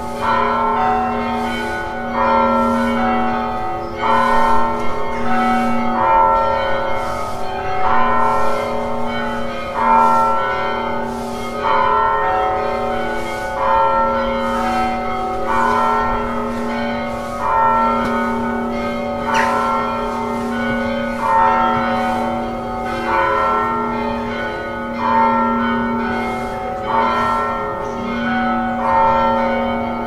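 Church bells tolling, with a stroke about every two seconds. Each stroke rings on into the next over a lingering low hum.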